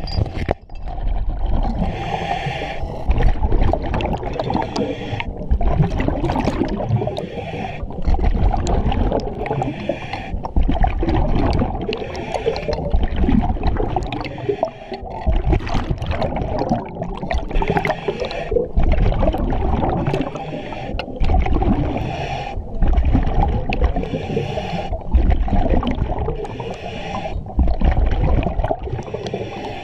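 Scuba diver breathing through an EXO-26 full-face mask underwater: the regulator's hiss on each inhalation alternating with rumbling, gurgling exhaust bubbles, in a steady rhythm of a breath every few seconds.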